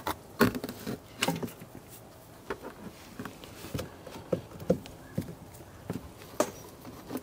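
A serpentine belt being worked off the engine pulleys by hand, with the tensioner released: a dozen or so light, irregular clicks and knocks of rubber belt, pulleys and tool.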